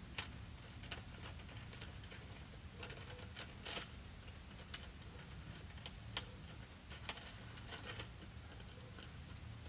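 Irregular light clicks and clinks of hardware being handled while roof-rack cross beams are bolted to the underside of a rooftop tent, over a low steady hum.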